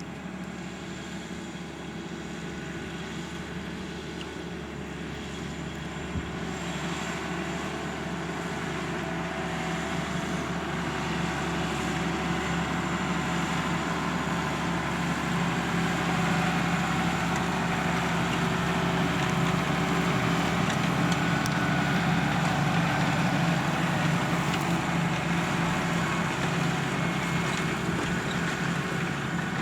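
Valtra tractor's diesel engine working steadily under load, pulling a four-furrow Pöttinger plough; it grows louder over the first twenty seconds or so as the tractor comes closer, then eases slightly.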